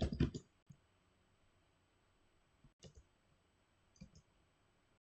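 Computer mouse clicking while drafting in AutoCAD: a quick run of clicks at the start, a single click just before the middle, and two clicks near the end.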